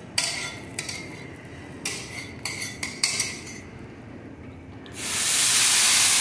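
Steel plates and utensils clinking and knocking a few times, then, about five seconds in, a loud steady hiss that takes over.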